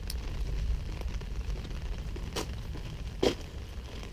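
Footsteps on wet gravel: a few sharp crunches, the loudest about three seconds in, over a steady low rumble.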